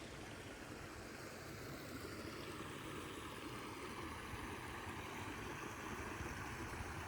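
Steady rushing of flowing water, an even noise with no distinct events.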